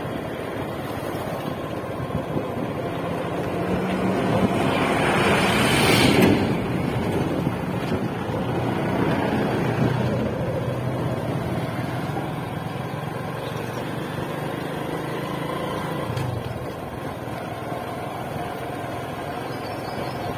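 Motorcycle engine running while the bike rides along, its pitch shifting with the throttle. A louder rush of noise swells and fades about five seconds in.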